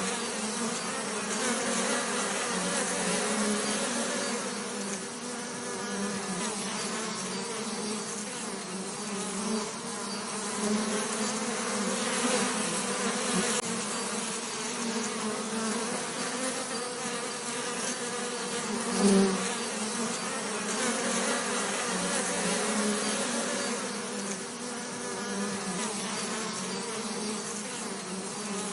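Bees buzzing in a steady, wavering drone, with one brief louder swell about two-thirds of the way through.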